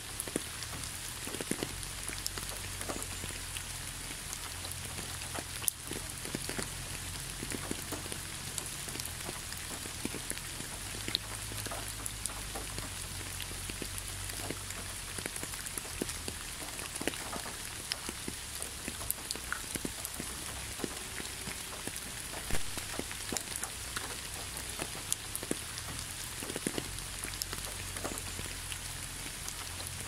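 Steady rain: an even hiss with many separate drops ticking irregularly, over a steady low rumble.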